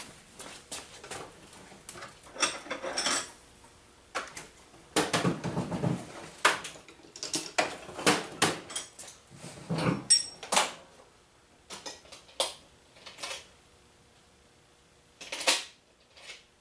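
Hand tools and metal parts clinking and rattling as they are handled in a small workshop. The sharp clatters come in irregular bunches through the first eleven seconds or so, then thin out, with one more clatter about fifteen seconds in.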